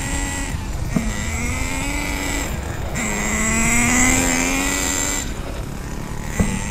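Radio-controlled cars running on asphalt: a motor whine that rises slowly in pitch in long pulls, about a second in, again at three seconds, and once more near the end, each pull starting with a sharp click.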